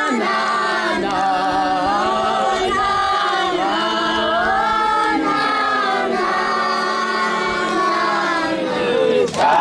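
A group of children singing together in chorus, unaccompanied, with long held notes rising and falling. Near the end the singing cuts abruptly to a louder passage.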